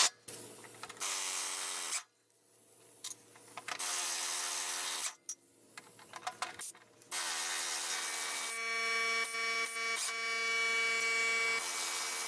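Handheld power driver turning the spindle mounting bolts out of a steel mower deck in several short bursts, each winding up and stopping. A longer run in the second half holds a steady whine.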